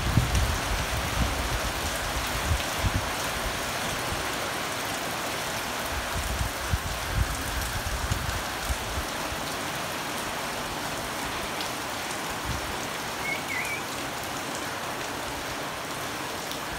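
Steady monsoon rain falling on garden foliage and wet ground: a continuous, even hiss, with a few low gusts on the microphone in the first few seconds.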